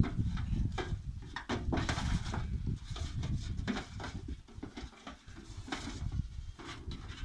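Goat kids bleating while they scramble over a metal wheelbarrow, with scattered knocks and scuffs of hooves on the metal.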